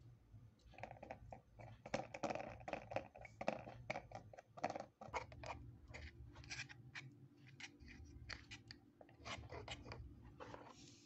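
A small metal spoon scraping and clinking against the inside of a tiny steel cup while stirring a chocolate milk mixture, in an irregular run of faint clicks and scrapes.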